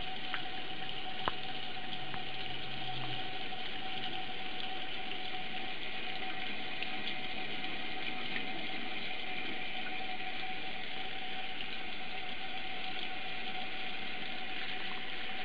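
Steady rush of running water from a tap or shower, with a few faint clicks early on.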